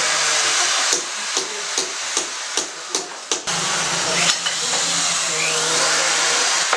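A small electric motor running with a loud rushing hiss, its pitch sweeping upward as it speeds up about five seconds in. Over it come sharp knocks, about two and a half a second, during the first half.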